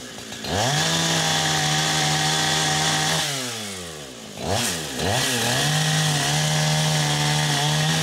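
Neotech NH872 chainsaw, a Husqvarna 372 clone with a two-stroke engine, revved twice from idle to full throttle. Each rev is held steady for about three seconds before dropping back, with a quick blip of throttle between them.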